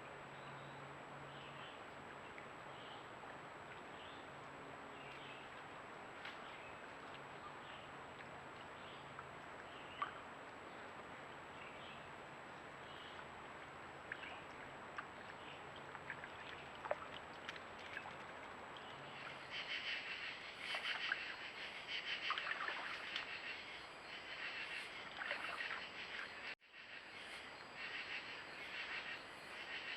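Outdoor creek-side ambience of a steady hiss. About two-thirds of the way in, a dense chorus of rapid, repeated high-pitched animal calls starts up. It breaks off for an instant near the end and then carries on.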